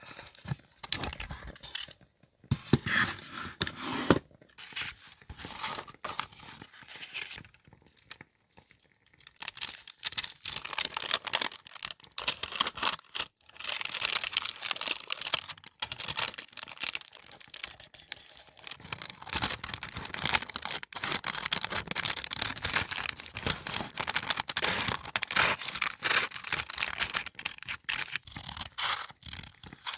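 Paper being handled up close: tearing, rustling and crinkling, with many small crisp clicks and scrapes. It comes in short, broken spells at first, then runs busier and denser from about ten seconds in.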